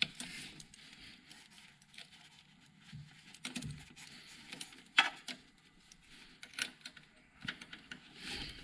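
Scattered small clicks and taps with light rustling as a fuel-line disconnect tool is worked onto a quick-connect fuel line fitting by gloved hands, the sharpest click about five seconds in.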